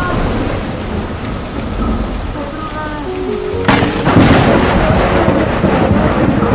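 Heavy rain pouring down in a strong windstorm, a loud steady rushing hiss. A little over halfway through it suddenly swells into a louder rush that stays up.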